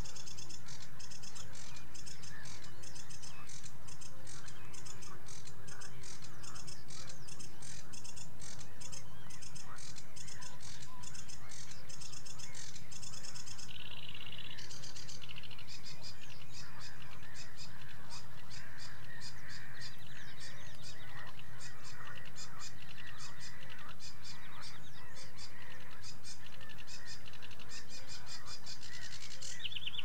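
Sedge warbler singing: a long, fast, high chattering song of rapidly repeated notes and trills, with a short change of phrase about halfway through.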